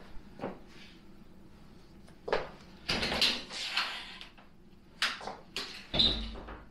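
Frosted-glass shower door being opened and closed by hand: several clicks and knocks, a short rolling rattle about three seconds in, and a heavier knock with a low thud near the end.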